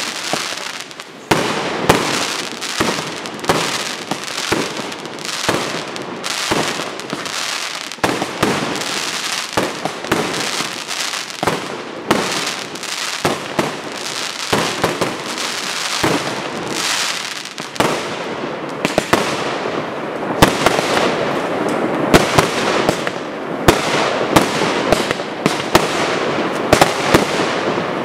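Professional fireworks display: a rapid run of aerial shells and comets being fired and bursting, with bangs every fraction of a second. From about two-thirds of the way in, a denser crackle of many small pops fills the gaps between the bangs.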